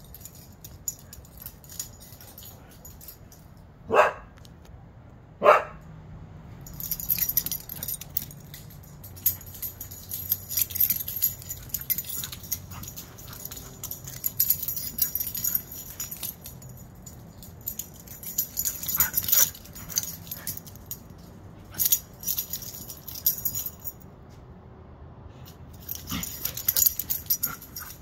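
Huskies play-fighting: two loud, sharp barks about four and five and a half seconds in, then the repeated jingling of their collar tags as they run, leap and wrestle, with a few more short sharp barks later.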